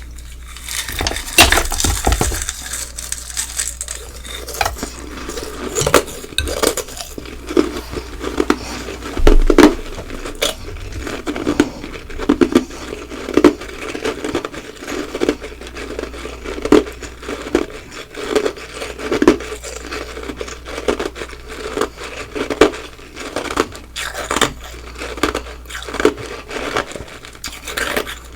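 Close-miked ice eating: a big crunchy bite of ice in the first few seconds, then steady chewing crunches about once a second.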